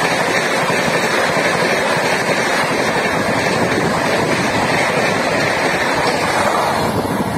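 Steady rushing noise of a fast passenger train's LHB coaches passing close by, wheels on rail and air rush together. The noise falls away at the very end as the train's last vehicle, a power car, clears.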